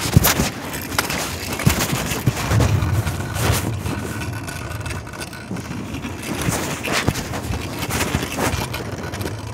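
Muffled rubbing, scraping and knocking of cloth against a phone's microphone carried in a pocket, with a low rumble coming and going underneath.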